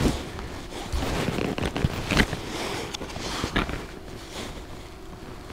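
Handling noise of a foam bait box worked by hand close to the microphone: irregular rustling with a few soft clicks, the sharpest about two and three and a half seconds in.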